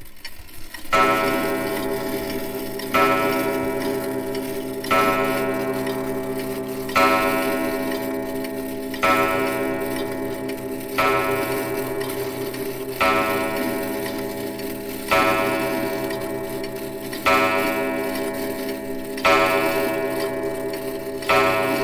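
Old clock striking midnight: eleven deep, ringing bell strokes, one about every two seconds, each sounding on into the next as it fades.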